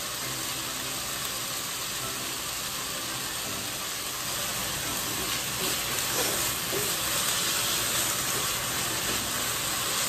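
Chicken thigh pieces sizzling in a dry nonstick frying pan, cooking in the fat they give off, as they are stirred with wooden chopsticks. The sizzle grows a little louder about halfway through.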